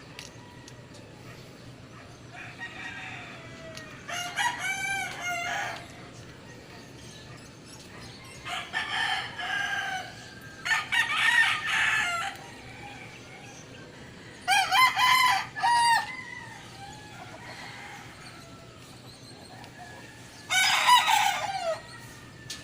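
Rooster crowing about five times, every few seconds, each crow about a second and a half long; the last one falls in pitch at its end.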